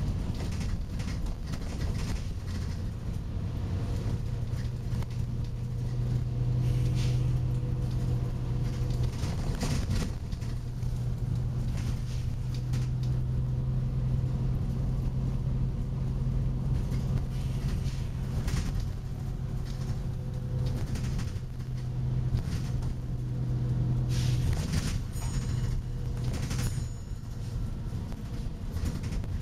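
Volvo B9TL double-decker bus with its 9-litre six-cylinder diesel running steadily, broken several times by short hisses of compressed air from its air system.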